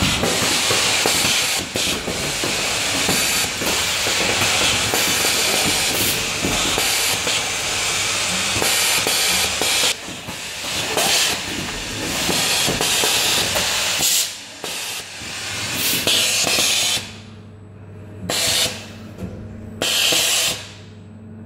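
Pneumatic testing and sorting machinery: a loud, steady hiss of air, over a low steady machine hum. The hiss drops out briefly several times in the second half.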